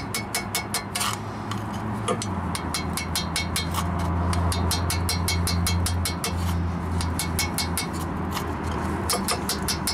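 Hammer on steel chisel, fast light tapping at about six taps a second, with a short pause about a second in. The chisel is chipping thick rust scale off the steering knuckle's ABS wheel-speed sensor mount, rust that had lifted the sensor away from its tone wheel.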